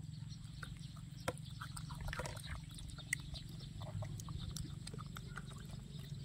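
A low steady hum with scattered faint clicks and small eating sounds as pet macaques are fed fruit salad from a metal spoon.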